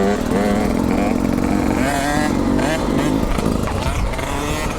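Two-stroke dirt bike engines running on a trail ride, the pitch rising and falling with the throttle.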